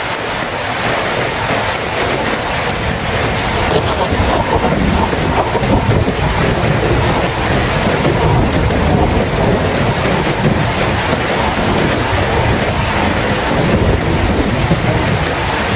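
Steady rain falling, with a low rumble of thunder underneath that grows stronger a few seconds in.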